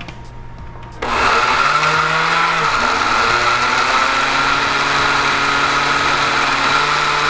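Countertop blender with a glass jar switching on about a second in and running steadily, puréeing thick cooked carrots and butternut squash thinned with some of their cooking liquid. The motor note wavers briefly before settling.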